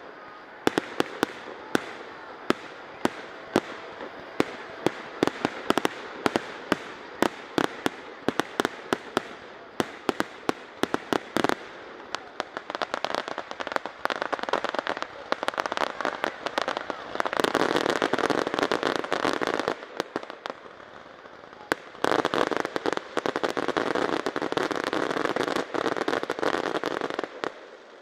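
An aerial fireworks display: sharp shell bursts coming faster and faster, building into a dense, continuous crackling barrage, the closing finale of the show. The barrage eases briefly about two-thirds of the way through, starts again, and cuts off suddenly near the end.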